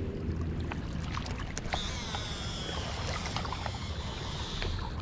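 Baitcasting reel's spool free-spinning as a catfish rig is cast out: a high thin whine that starts about two seconds in and slowly drops in pitch as the spool slows. Steady wind and water noise and a few small clicks underneath.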